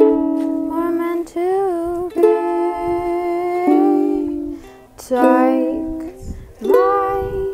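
A ukulele strummed in slow chords, with a voice singing a slow melody over it, the sung notes held and sliding between pitches.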